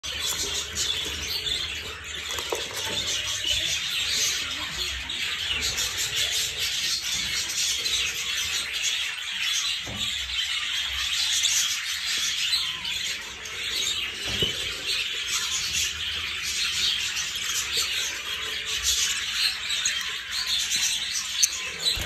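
Budgerigars chattering and chirping without pause, a dense mix of short high twitters and calls.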